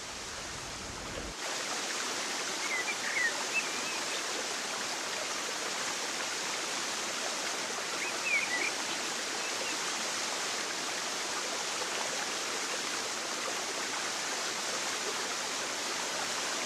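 A steady, even rush of flowing water, with a few faint short high chirps now and then.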